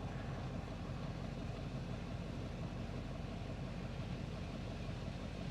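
A vehicle engine idling steadily, an even low rumble.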